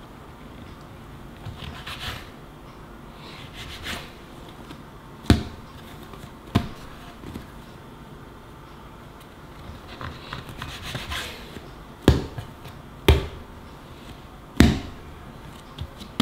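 Plastic bench scraper cutting through a ball of bread dough and knocking down onto a marble board: five sharp taps, in two groups, with softer sounds of hands pressing and scraping the dough in between.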